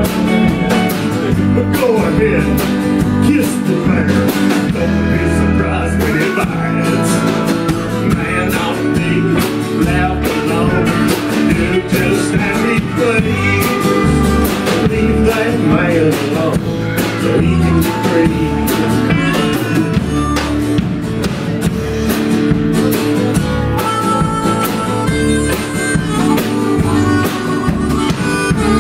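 Live country-blues band playing at a steady beat: drum kit, electric bass, strummed acoustic guitar and pedal steel guitar.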